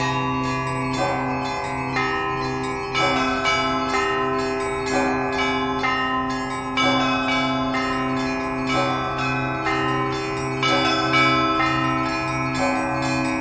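Russian Orthodox church bells ringing (kolokolny zvon): the smaller bells are struck in a quick, dense pattern over the steady hum of the larger, deeper bells.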